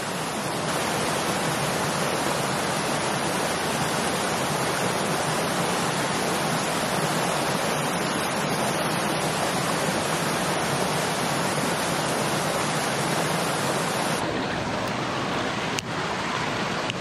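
Small mountain creek running over rocks: a steady rush of water. About fourteen seconds in the rush changes in tone, and two faint clicks follow.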